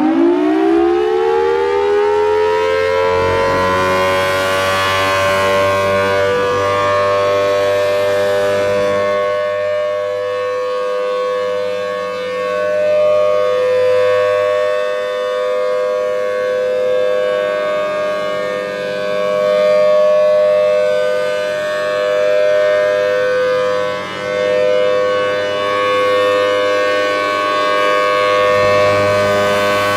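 Federal Signal Thunderbolt 1000T electromechanical warning siren finishing its wind-up, its pitch rising and levelling off in the first few seconds. It then holds a loud, steady alert tone of two pitches sounding together.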